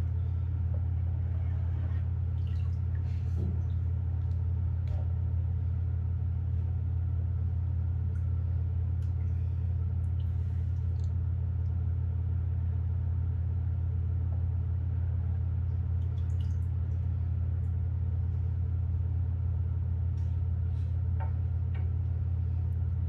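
Steady low hum at an unchanging level, with a few faint scattered clicks and taps.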